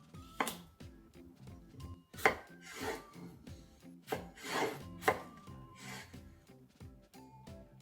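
A kitchen knife cutting food on a cutting board: a few sharp strokes a second or two apart, with scraping between them. Light plucked-string background music plays underneath.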